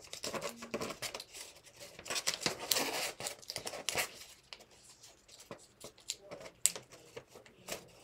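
Origami paper rustling and crinkling under the fingers as a fold is pushed in and creased (a closed sink fold), in short irregular scrapes and crackles. They are busiest a couple of seconds in, then thin out to a few faint ticks.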